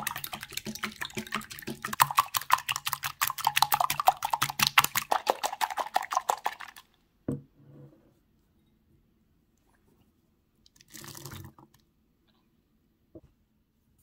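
Wire whisk beating raw eggs in a glass bowl: rapid, even strokes of clicking and sloshing that stop about seven seconds in. A single knock follows, then a brief scraping noise around eleven seconds and a light tap near the end.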